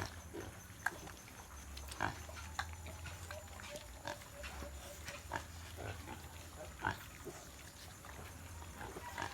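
Native pigs grunting and squealing in many short, scattered calls as the sow nurses her piglets.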